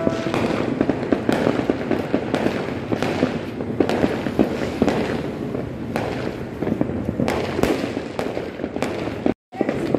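A long run of firecrackers going off in a rapid, continuous crackle of many sharp pops a second. It breaks off abruptly near the end.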